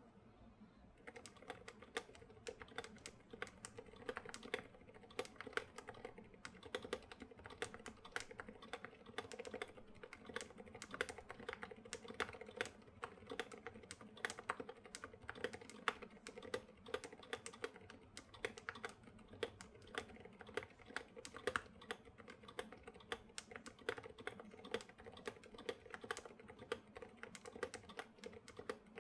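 Continuous fast typing on a KBD67 Lite mechanical keyboard with silent switches and SA keycaps: a quiet, steady patter of soft keystrokes, several a second.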